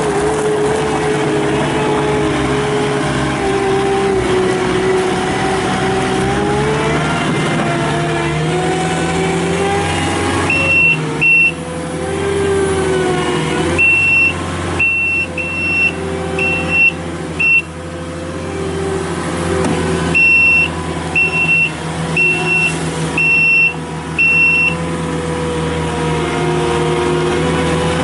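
Kubota SSV65 skid steer's four-cylinder diesel engine running and working, its pitch sagging and recovering with load. About ten seconds in, a high beeping alarm starts sounding in three runs of short, evenly pitched beeps.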